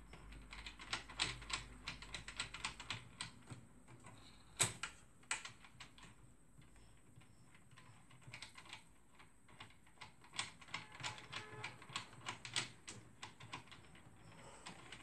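Xerox 3370 fuser's gear train and rollers being turned by hand at the main gear: irregular clusters of light clicks and ticks, busiest in the first five seconds and again after about ten seconds. The turning sounds fairly normal but with some loose rattle, which the repairer suspects comes from a worn exit-roller shaft sleeve.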